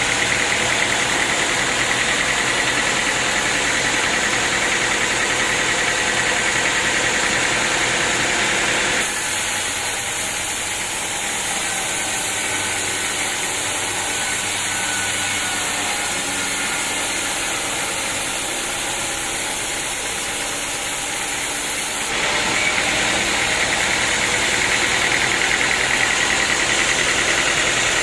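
Sawmill machinery running steadily, an engine-driven saw at work. The sound changes abruptly twice, about a third of the way in and again about three-quarters through.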